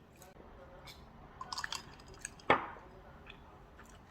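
Eating sounds at a fried-chicken meal: a quick run of small crackling clicks, then one sharp knock about two and a half seconds in, with a short ring after it.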